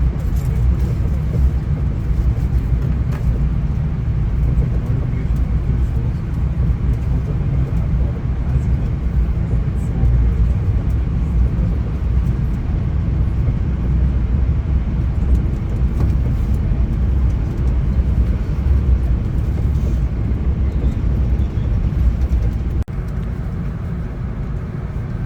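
Steady low rumble of a VIA Rail passenger train running at speed, heard from inside the passenger car. The level drops suddenly a couple of seconds before the end.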